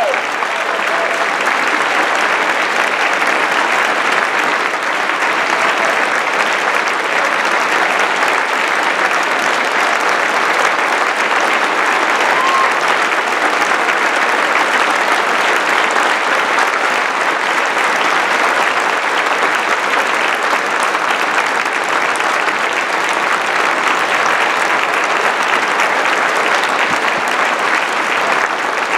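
Large concert-hall audience applauding steadily after an orchestral performance, a dense, even clapping that holds its level throughout, with one short high call rising out of it about twelve seconds in.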